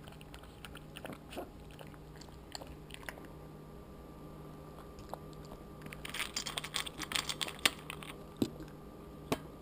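Puppy chewing and crunching dry kibble from a stainless steel bowl. The crunches come scattered at first, then a dense run of crunching and clicks from about six seconds in, with a few more near the end.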